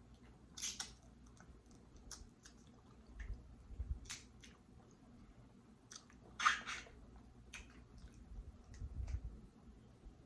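Close-miked eating of a seafood boil: chewing and wet mouth sounds with scattered short clicks and crackles, the loudest about six and a half seconds in.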